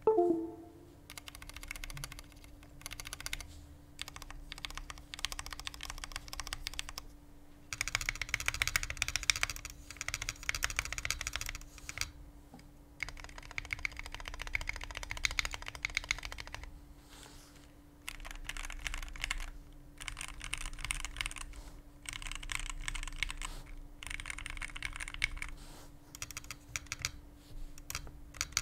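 Pressplay Voyager 68 Lightyear Edition mechanical keyboard being typed on in a typing test: a tray-mount board with pre-lubed switches and full dampening, keys clicking in rapid runs of a few seconds broken by short pauses. A single knock with a brief ring at the very start is the loudest sound, and a faint steady hum runs underneath.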